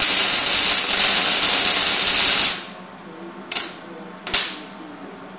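MIG welding arc crackling on steel while a nut is welded onto a steel tube: one steady weld of about two and a half seconds that stops abruptly, then two short tack bursts about a second apart.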